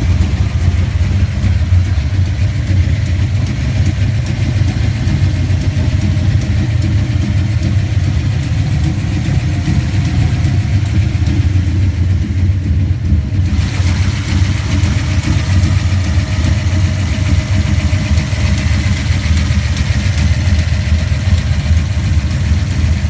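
1967 Ford Mustang street car's engine idling steadily and loudly; the car has a small exhaust leak.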